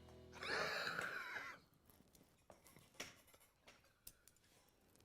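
A breathy, wheezing laugh lasting about a second, then only faint clicks.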